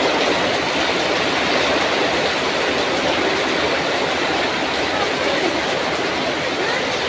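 Heavy tropical downpour: a loud, steady rush of rain.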